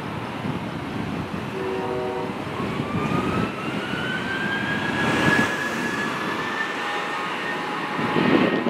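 Airbus A320 jet engines spooling up for takeoff: a whine that rises over about three seconds and then holds steady, over a broad rumble. A brief steady tone sounds about two seconds in.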